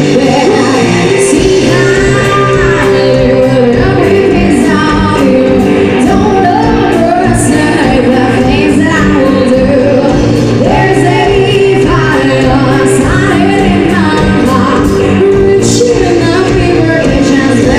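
Live band playing a song with a lead singer over the instruments, loud and steady.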